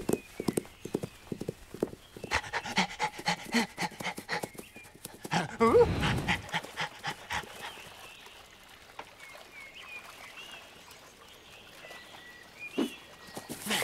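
A cartoon dog panting, over a run of quick footstep taps in the first few seconds. A louder low breathy sound comes about six seconds in. After that it turns quieter, with a few faint high chirps.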